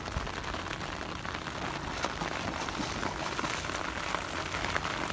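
Heavy rain falling on the flooded paddy's open water, a steady hiss full of small drop ticks, mixed with water splashing as people wade and swim through it.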